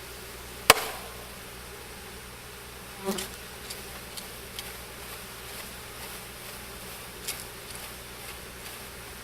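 A mass of honey bees buzzing steadily. A sharp knock comes about a second in, a duller thud near three seconds and a few light taps after that, typical of a bee package being rapped to shake the remaining bees out.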